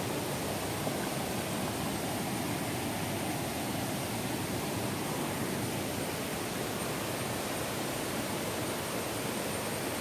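Steady roar of a small waterfall, water rushing over rocks into a shallow stream.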